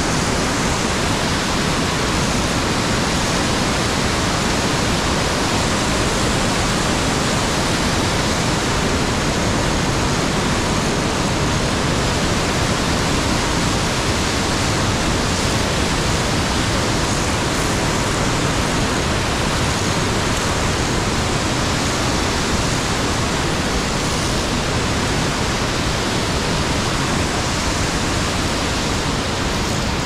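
Whitewater of a mountain torrent cascading over boulders in a gorge: a loud, steady, unbroken rush of water.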